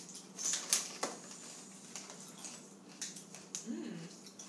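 Crunching of grain-free tortilla chips being bitten and chewed, mixed with crinkling of the plastic chip bag: a scatter of sharp, crisp clicks, busiest in the first second.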